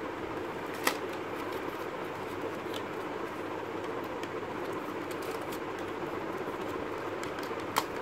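A small cardboard puzzle-cube box being opened and handled, with light rustles and small ticks, and two sharp clicks about a second in and near the end, over a steady background hiss.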